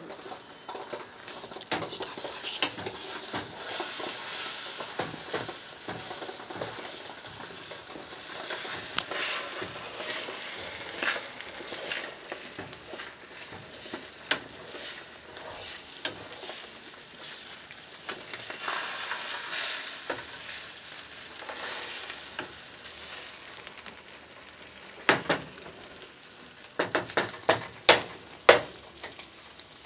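Eggs sizzling in a frying pan while a utensil stirs and scrapes them, with a few sharp knocks of the utensil against the pan near the end.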